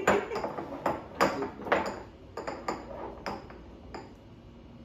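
Small glass baby food jars knocking and clinking against each other and sliding on a wooden table as they are shuffled by hand. There is a quick run of light clinks that thins out after about four seconds.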